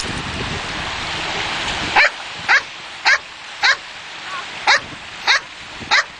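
A dog barking in about seven short, high barks, roughly half a second apart, starting about two seconds in, over a steady hiss of surf and wind.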